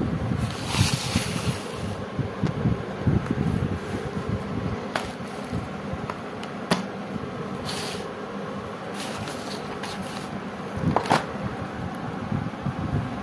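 Cardboard sparkler boxes being handled and shifted by hand: rustling and scraping with a few sharp taps, over a steady background hum.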